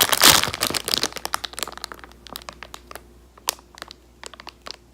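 Crinkling and rustling of a squishy toy being handled close to the microphone, dense for the first second and a half, then thinning to scattered crackles and clicks.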